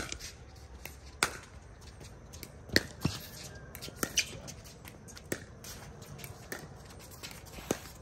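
Pickleball rally: sharp pops of paddles hitting the plastic ball, mixed with the ball bouncing on the hard court, about one a second, the loudest near 3 seconds in.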